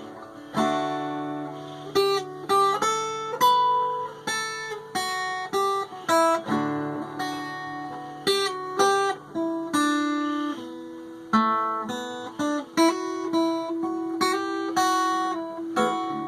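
Acoustic guitar picking out a folk melody, each plucked note sharp and ringing, over sustained low notes.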